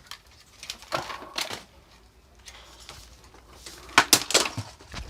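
Hard objects being handled and set down on a workbench: a few sharp clicks and knocks, with a quick cluster of them about four seconds in.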